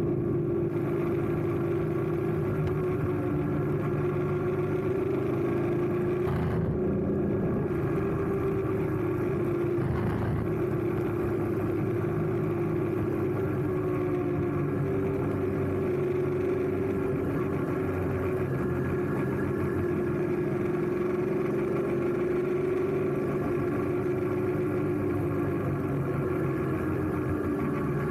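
BMW F850GS parallel-twin engine running while the motorcycle cruises along a road, its steady engine note wavering slightly with throttle and dropping a little near the end as the bike slows.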